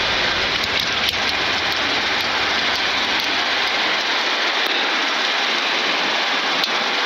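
Steady hiss of the Boeing 747-8 flight deck: airflow and engine noise, with the deep rumble underneath dying away about four seconds in as the engines are shut down and spool down.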